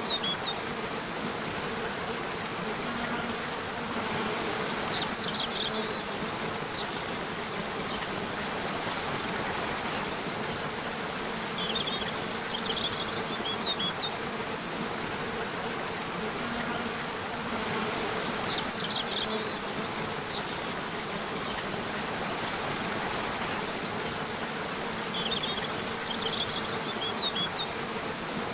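Nature ambience: a steady rush of flowing water, with an insect buzzing on and off, and clusters of short high chirps recurring every five to seven seconds.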